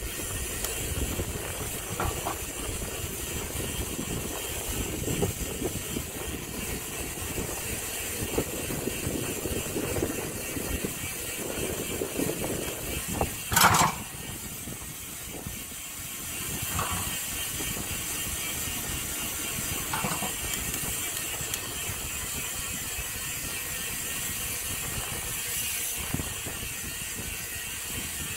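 A bicycle being ridden along a paved path, its parts rattling and clicking steadily. One sharp, loud clatter comes about halfway through.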